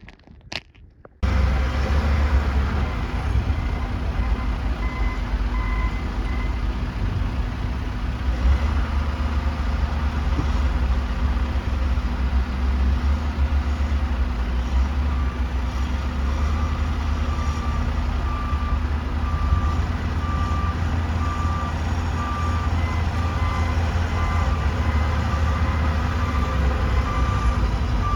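Heavy vehicle engine running with a steady low rumble. About halfway in, a backup alarm starts beeping at a steady pace, as on a reversing truck.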